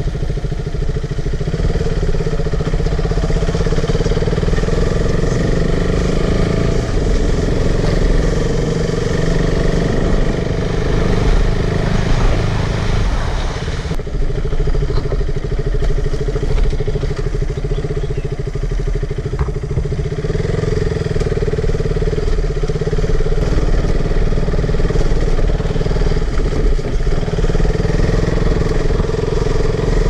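Motorcycle engine running steadily as the bike is ridden along a rough dirt track, the note dropping briefly about halfway through.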